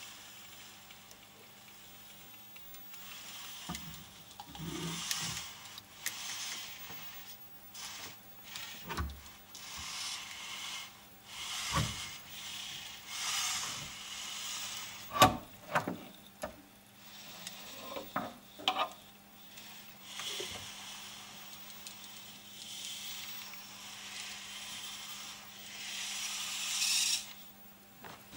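Servo motors of a 3D-printed robot arm whirring in short spells as the arm moves, with sharp knocks and clicks as its rigid plastic finger strikes and catches a cabinet door handle and pulls the door open. A faint low hum sits underneath.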